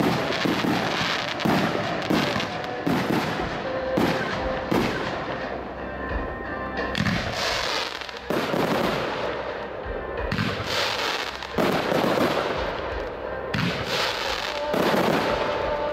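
Large fireworks display: a rapid, irregular run of sharp bangs from shells launching and bursting, with stretches of hissing, crackling sparks between them.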